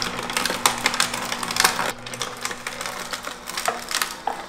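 Omega NC900 masticating juicer running with almonds, dates and mulberries being crushed by its auger. A steady low motor hum sits under rapid, irregular cracking and crunching, which thins out after about two seconds.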